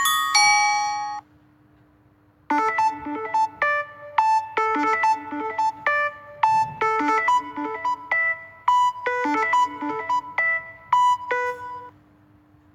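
A Samsung Galaxy Note10+ ringtone melody played on a synthesized keyboard voice: a run of short, bright struck notes, two to three a second, starting about two and a half seconds in and stopping shortly before the end. Before it, the previous bell-like tune rings out within the first second, followed by a brief pause.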